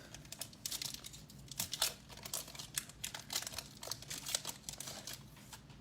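A hockey card pack's wrapper being torn open and crinkled by hand: a quick run of irregular sharp crackles.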